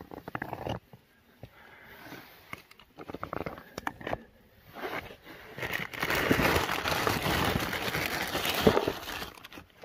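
A hand rummaging among loose slate stones in a rock crevice, with scattered scrapes and clicks. About six seconds in, a plastic bag is pulled out of the gap and rustles and crinkles loudly for several seconds.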